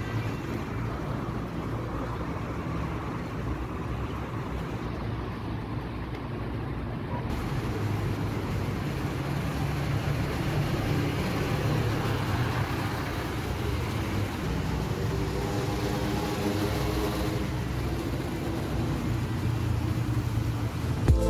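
Steady motor vehicle noise: a low rumble with road hiss, holding level throughout.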